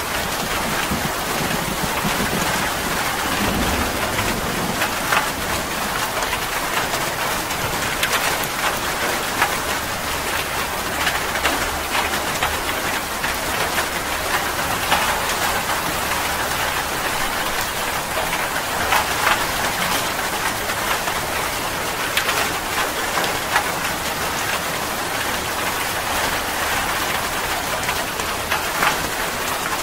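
Steady heavy rain falling on leaves and the ground, with many separate drops tapping sharply close by. There is a low rumble of distant thunder in the first few seconds.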